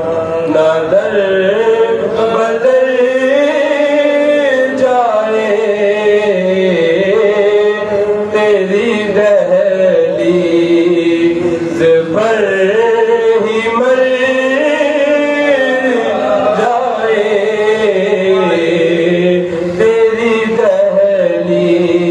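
A man singing a naat, an Urdu devotional poem in praise of the Prophet, in a slow melodic line with long held, wavering notes. A steady low drone runs underneath.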